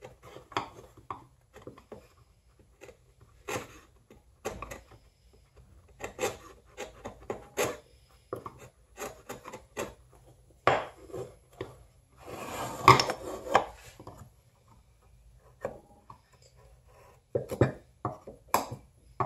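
Bench chisel paring end grain on a small block of pine by hand: short, irregular scraping strokes, with a longer scrape about two-thirds of the way through. A few sharper wooden knocks near the end.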